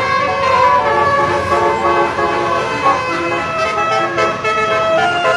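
Tour bus's Basuri telolet horn playing a melody: several horn tones sounding together and jumping from note to note every fraction of a second.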